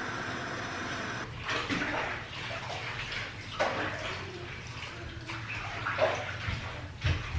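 Water running steadily into a bathtub for about a second, then water splashing and sloshing in the tub every so often as a toddler is bathed.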